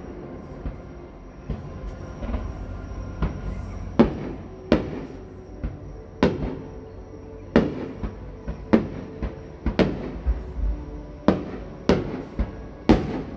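Aerial fireworks shells bursting one after another, a sharp bang about every second, each trailing off in an echo.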